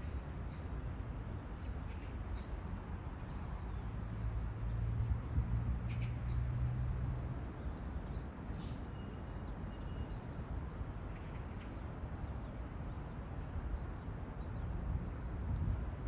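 Outdoor ambience: a steady low rumble, which swells for a few seconds about four seconds in, with scattered faint high bird chirps.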